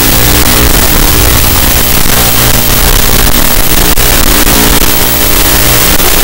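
Mini FPV quadcopter's motors and propellers running, a loud steady buzz with heavy hiss over it.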